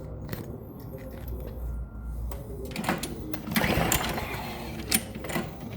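John Deere walk-behind mower being pull-started after a squirt of starting fluid: the engine cranks and pops a few times from about halfway in but does not catch. It has spark yet will not run on its own.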